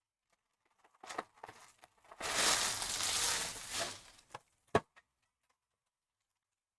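Packaging being torn and crinkled, most likely cellophane wrap or wrappers on a box of trading cards. There are a few light knocks about a second in and one sharp knock near the end.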